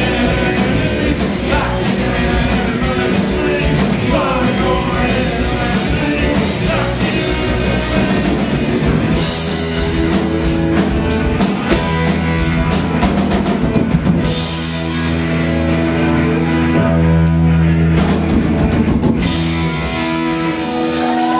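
Live rock band playing: loud drum kit and distorted guitars, with some singing, recorded close up and heavily distorted. The drumming thins out for a few seconds past the middle while the chords ring on, then picks up again.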